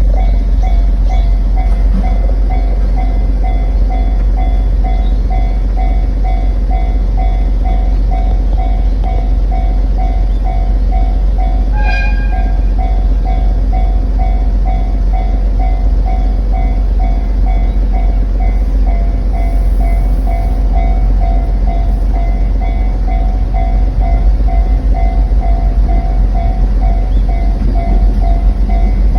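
Japanese level-crossing alarm ringing in an even two-tone pattern at about two strokes a second, over a steady low rumble of rail cars being shunted across. A brief high tone sounds about twelve seconds in.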